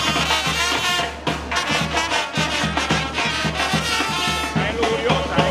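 Panamanian murga brass band playing a lively tune: brass horns with trumpets leading over a steady drum beat.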